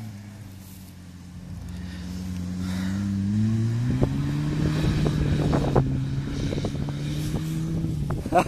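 Off-road 4x4's engine revving up, rising in pitch over the first few seconds and growing louder as it approaches across rough ground, then running steadily, with a few knocks along the way.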